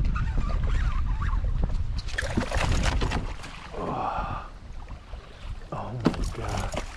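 Wind buffeting the microphone as a low rumble, easing off after about three seconds. A brief mid-pitched sound follows about four seconds in, then a few sharp clicks near six seconds.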